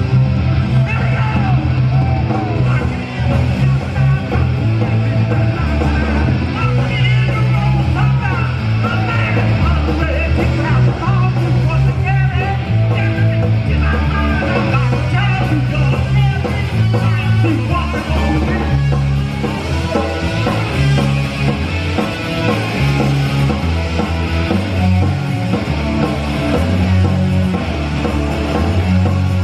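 Punk rock band playing live at full volume: electric guitars, bass and drums, with shouted vocals.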